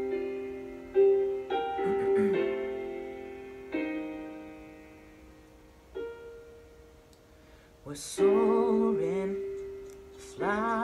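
Piano introduction of slow chords, each struck and left to ring and fade. About eight seconds in, a man's voice comes in singing long held notes with vibrato, and comes in again just before the end.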